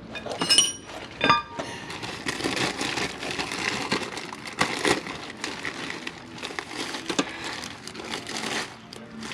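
Two short ringing metallic clinks, then several seconds of continuous scraping, rustling noise with scattered small knocks.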